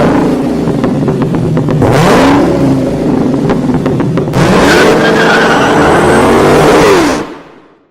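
An engine revving up and down repeatedly, its pitch climbing in several surges, then fading out near the end.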